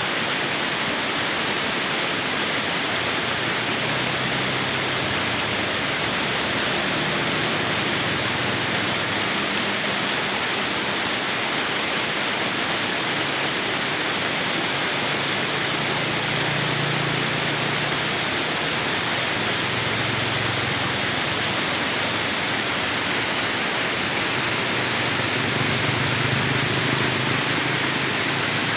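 River water flowing, a steady even hiss with no breaks.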